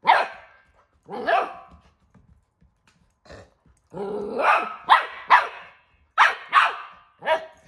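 Golden retriever puppy barking: about eight short barks in irregular bursts, with one longer bark about four seconds in.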